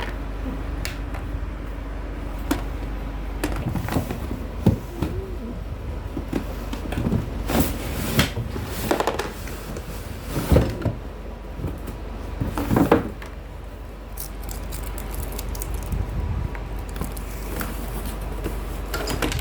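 Toy packaging being handled and pulled apart while unboxing a toy kitchen set: irregular rustles, scrapes and knocks of cardboard and plastic over a steady low hum. The louder knocks and scrapes come in the middle stretch.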